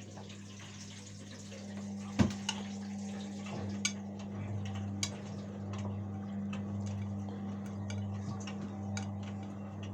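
Washing machine running: a steady electrical hum with water sounds and scattered small ticks and clicks, and one sharper knock about two seconds in.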